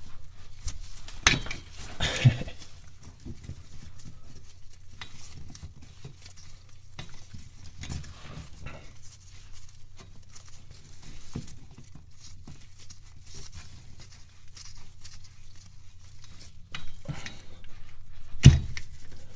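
Scattered metallic clicks, knocks and scrapes of hand tools and the speedometer pinion gear sleeve being worked loose from a transmission, with a couple of sharper knocks about a second in and another near the end.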